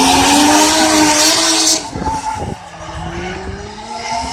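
Drift car's engine held at high revs, its pitch climbing, over loud tyre screech. The screech cuts off abruptly a little under two seconds in. The engine then carries on more quietly, rising in pitch again.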